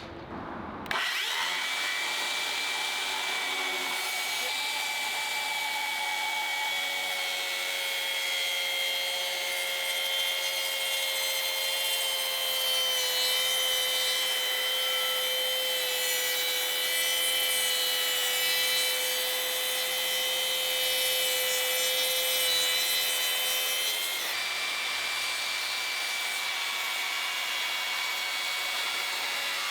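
Makita HS004G 40Vmax 190mm brushless circular saw cutting through wood, starting sharply about a second in and running steadily with a high whine over the blade's rasp.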